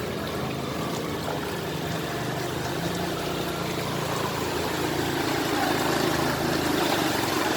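Floodwater rushing steadily, with a vehicle engine's low hum running underneath, swelling louder in the second half.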